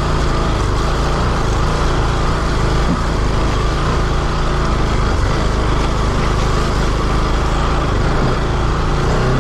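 Motorcycle engine running steadily while riding up a dirt track.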